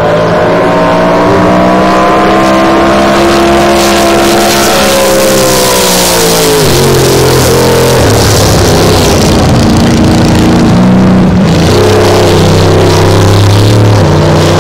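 Racing powerboat engine running hard at speed, its note climbing gently for a few seconds and then falling sharply about halfway through. It then runs on at a lower note with a couple of dips and rises, under a hiss of spray and rushing air.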